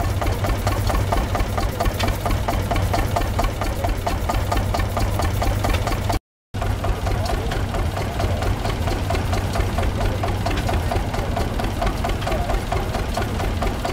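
Single-cylinder diesel engine of a 1938 Kramer K18 tractor running steadily with a fast, even knocking beat. The sound cuts out for a moment about six seconds in.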